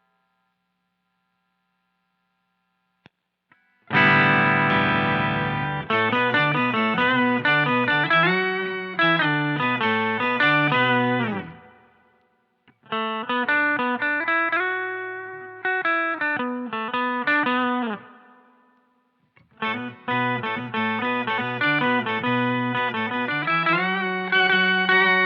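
Electric guitar played through an Electro-Harmonix Soul POG octave-generator and overdrive pedal. After a few seconds of near silence a chord is struck about four seconds in, then comes a run of picked notes and chords in phrases, with two short pauses.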